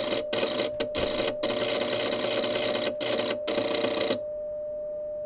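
LDG AT-1000ProII automatic antenna tuner's relays clicking rapidly through a tuning cycle, with a steady tone from the Icom IC-7300 transceiver keyed to transmit underneath. The clicking stops about four seconds in, when the tuner settles on a match, and the tone carries on alone.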